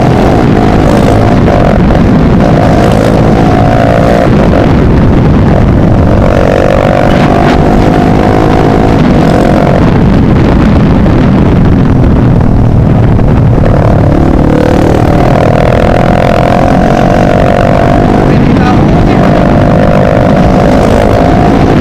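Motorcycle with an open exhaust running at speed, its engine note rising and falling as the throttle opens and closes, over heavy wind rush on the microphone.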